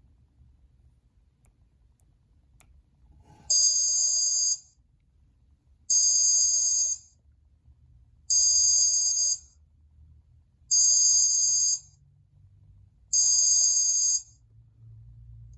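Cingular 8525 (HTC Hermes) Pocket PC phone playing a ringtone through its speaker: five high electronic rings, each about a second long, repeating roughly every two and a half seconds, starting a few seconds in.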